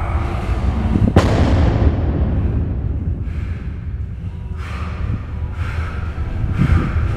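A 250 kg barbell loaded with bumper plates hits the floor about a second in as a deadlift rep is lowered: one heavy impact, with the bar and plates ringing as it fades. Then come short, forceful breaths about once a second as the lifter sets up for the next rep.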